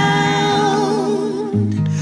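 Background music from a worship song: a wavering held melody note over a steady guitar and bass accompaniment.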